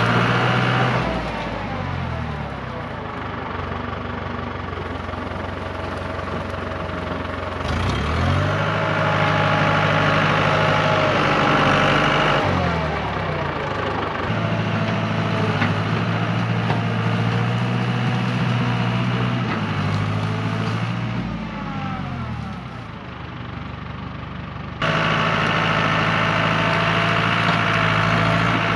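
Old Case construction tractor's engine working as it pushes into heavy brush, its pitch dropping and climbing back up several times as the load comes on and off. It picks up sharply near the end.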